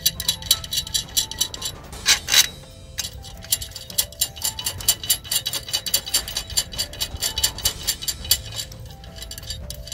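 Background music with a fast, clock-like ticking beat and a short repeating melody.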